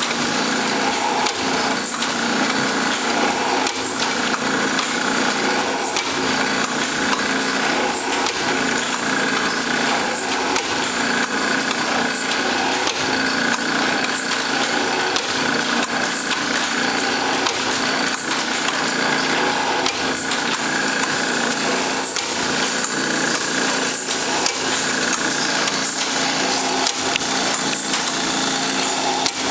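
Automatic PVC pipe drilling machine at work: the drill head's motor runs steadily while the bit bores holes through the plastic pipe, with frequent short knocks throughout.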